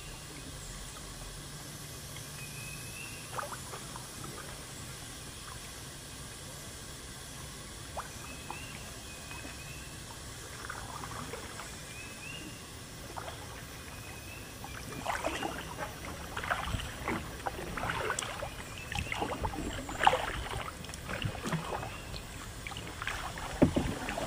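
Kayak paddle working the water: light trickles and drips at first, then a busy run of splashes and drips through the second half.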